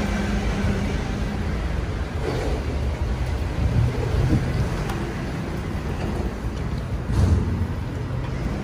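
Road traffic going past: a vehicle's engine hum fades away in the first second or so, leaving a steady rumble of passing traffic.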